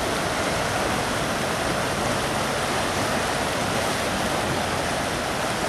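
Floodwater rushing and pouring, a steady, loud sound of running water.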